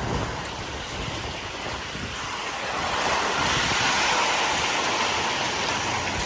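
Thunderstorm wind gusts with heavy rain, a steady rushing noise that swells louder about two and a half seconds in.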